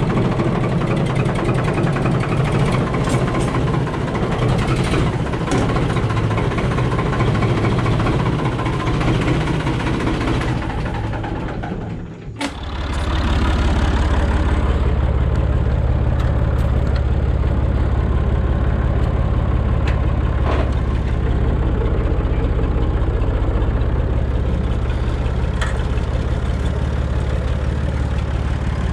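A tractor engine running, fading and dropping out about twelve seconds in. Right after, a Massey Ferguson 135 tractor's engine runs on with a steady, low drone.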